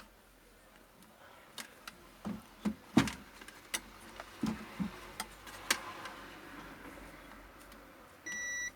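Scattered clicks and taps of multimeter probes on a circuit board, then near the end a digital multimeter's continuity buzzer gives a steady high beep, the sign that the probed points are connected on the 12-volt supply track.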